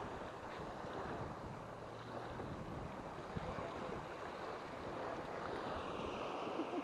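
Wind buffeting the microphone over small waves lapping at a stony shore, a steady noise with no distinct events.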